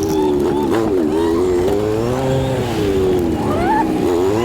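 Feed truck's engine running at low speed, its pitch rising and falling as the throttle changes, with a brief rising whine about three and a half seconds in.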